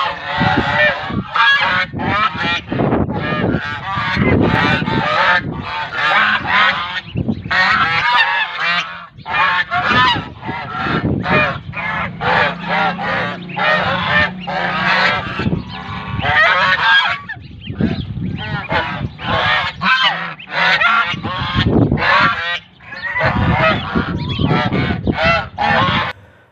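A group of white domestic geese honking and calling almost without a break, many calls overlapping, with a few short lulls.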